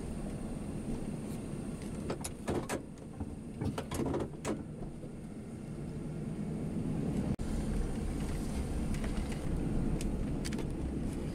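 Pickup truck engine idling, heard from inside the cab, with a handful of clicks and knocks a couple of seconds in. About seven seconds in the engine's low rumble grows louder as the truck pulls off the scale.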